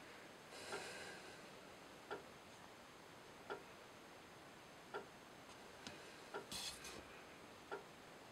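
Near silence: room tone with faint, sharp single ticks about every second and a half, and a brief rustle about six and a half seconds in.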